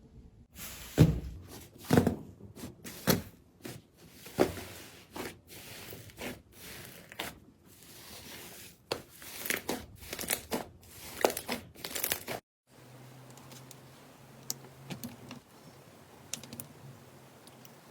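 Slime being pressed and pulled by hand, crackling and popping in sharp, irregular bursts. About twelve seconds in it cuts off suddenly to a quieter stretch with a low hum and a few faint clicks.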